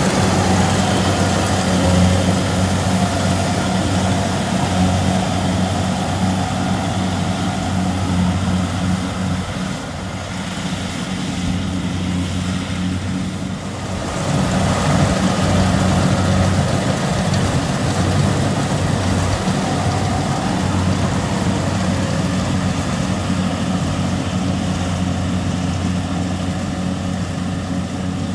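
Kubota DC70 rice combine harvester at work, its diesel engine running with a steady low drone. The sound eases a little about ten seconds in and picks up again about four seconds later.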